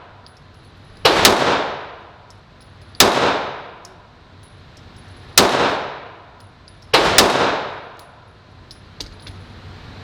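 Pistol shots fired slowly at an indoor range, six in all with two pairs in quick succession. Each shot rings out with a long echoing tail off the range walls, and faint light clicks follow near the end.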